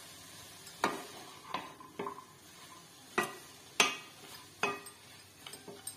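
A spatula stirring chopped radish leaves in a kadhai, with about six sharp knocks of the spatula against the pan at irregular intervals. The loudest knock comes nearly four seconds in.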